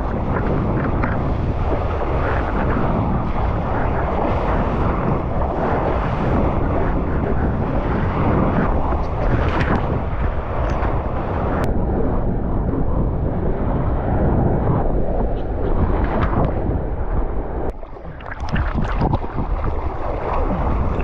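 Wind buffeting a GoPro's microphone, mixed with rushing seawater, as a surfer moves through the water. The noise is loud and unbroken, and drops for a moment late on before it comes back.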